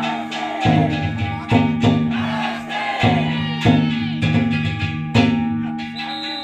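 Danjiri float music (narimono): a taiko drum and hand gongs struck about twice a second in an uneven rhythm, each stroke ringing on.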